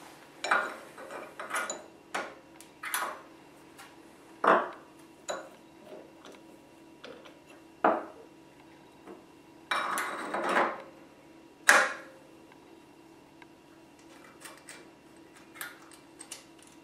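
Steel change gears and their fittings on a Grizzly G0602 metal lathe being handled by hand: irregular metallic clinks and clanks as gears are taken off and set back on the gear train. There is a longer rattle about ten seconds in and a sharp clank just after.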